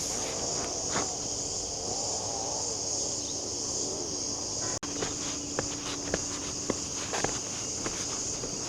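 A steady, high-pitched chorus of insects, with footsteps crunching at an irregular pace over it.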